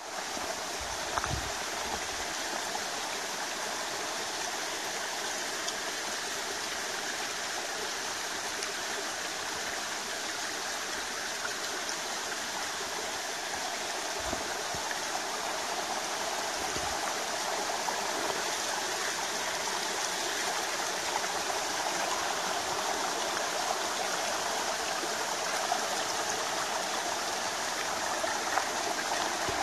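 Mountain stream running over rocks: a steady rush of water that grows slightly louder toward the end, with a few soft low thumps.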